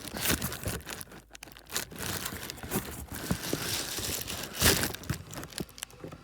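Crinkly rustling and scraping with scattered clicks and knocks: handling noise as the camera is moved and set in place. The loudest scrape comes near the end.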